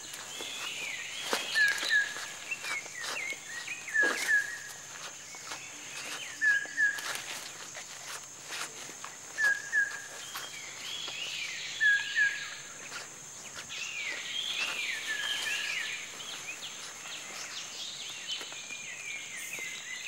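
Tropical rainforest ambience: a steady high-pitched insect drone, with a bird giving short double notes every two or three seconds among other birds' falling chirps.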